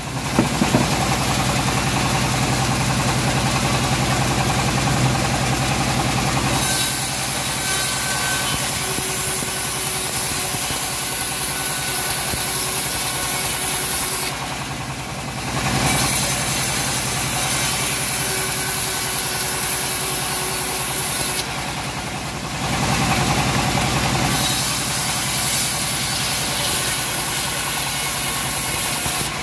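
Homemade bandsaw mill running steadily, its blade ripping lengthwise through a teak beam over a constant drone from the drive. The hissing cut drops out briefly about fifteen and twenty-two seconds in, leaving the drone.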